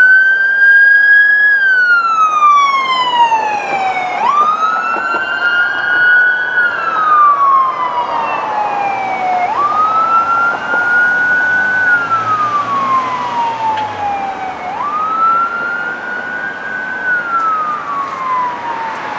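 Emergency vehicle's electronic siren in wail mode: four slow cycles, each a quick rise in pitch followed by a long, slow fall, about one every five seconds. It grows gradually fainter as the vehicle drives away.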